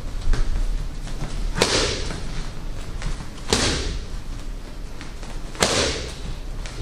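Strikes landing on focus mitts during pad work: three loud smacks about two seconds apart, with fainter hits between them.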